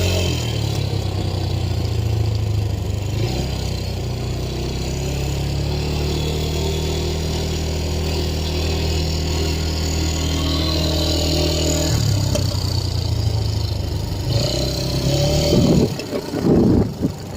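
ATV engine running under way, its pitch shifting as it speeds up and eases off. Near the end the engine sound drops away into uneven, louder bursts of noise.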